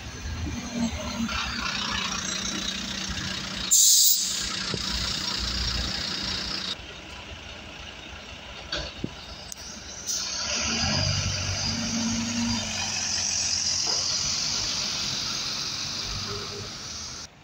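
Wright Gemini 2 double-decker bus idling at a stop, with a short, loud hiss of compressed air about 4 seconds in. About 10 seconds in its engine rises as it pulls away, then fades.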